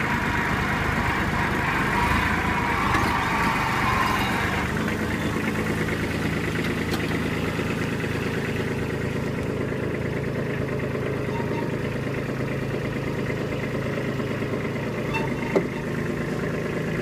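Kubota B2441 compact tractor's three-cylinder diesel engine running steadily. For the first four seconds or so a higher-pitched noise sits over it, then it settles to a plain even run. There is a single sharp click near the end.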